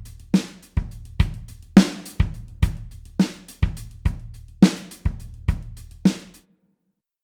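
Acoustic drum kit playing an alternative-rock beat: kick drum and snare alternating under cymbals, about two hits a second. It stops suddenly about six seconds in.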